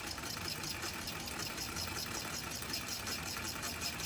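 Low-temperature-differential Stirling engine running fast with an even, rapid mechanical ticking from its crank and displacer linkage, driven by the large temperature difference between liquid nitrogen in the cup beneath and hot water on the top plate.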